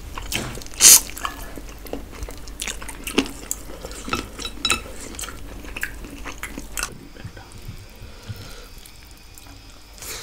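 Wet chewing and lip-smacking of people eating chicken fried rice by hand: many sticky mouth clicks, with one loud smack about a second in. The eating sounds thin out after about seven seconds.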